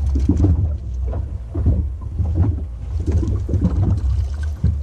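A fishing boat's motor running low and steady at trolling speed, with irregular knocks and splashes over it.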